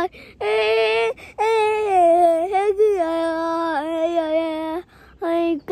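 A young child's voice right at the microphone, making long drawn-out held vocal sounds: three stretches of about one to two seconds each, wavering and sliding in pitch, the last one lower and the longest, followed by a short pause and a couple of brief sounds near the end.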